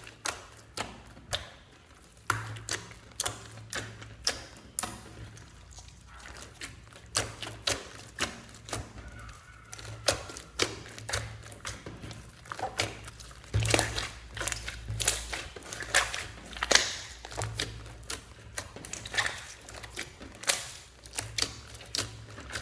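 Slime being squeezed and kneaded by hand, giving irregular sticky clicks and pops several times a second over a faint low hum.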